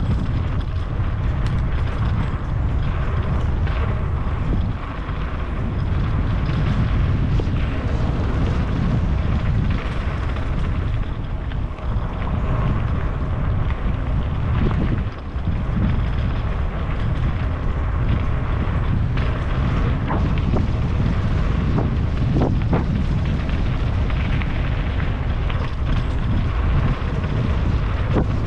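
Heavy wind buffeting on the microphone: a loud, steady low rumble with hiss above it and a few brief knocks.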